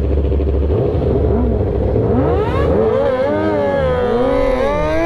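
Inline-four sportbike engines, a Kawasaki ZX-10R among them, running at speed: a steady engine note at first, then from about two seconds in several engine notes rising and falling as the bikes rev and shift. Low wind rumble on the microphone near the start.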